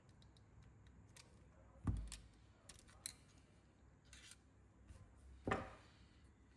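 Small metal parts and a screwdriver clicking and scraping while an RC car chassis is assembled by hand, with two louder knocks, one about two seconds in and one near the end.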